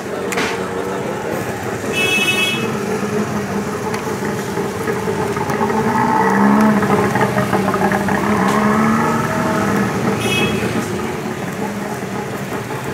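Street traffic noise with a vehicle horn tooting briefly about two seconds in, and again about ten seconds in.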